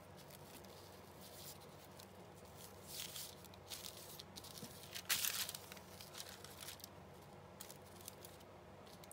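Paper and craft materials handled on a desk: faint rustles, with short louder ones about three seconds in and about five seconds in.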